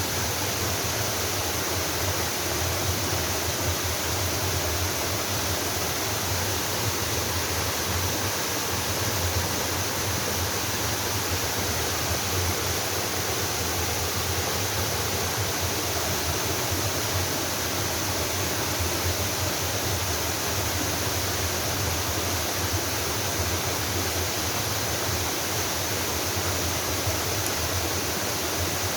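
Waterfall pouring into a mountain stream, a steady, unbroken rush of water.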